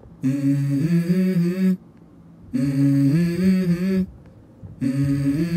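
A low voice intoning three long held phrases, each about a second and a half, with short pauses between. Each phrase steps between a few steady pitches, like a hummed chant.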